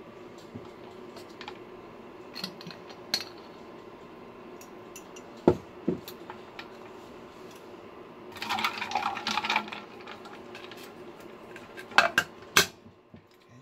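Tableside clatter of a stainless steel cup of kombucha on ice and a glass bottle: a couple of dull thumps as they are set down on the wooden table, a brief rattle about eight seconds in, and two sharp metal clinks near the end. Under it runs a steady hum from the induction burner heating the empty pan.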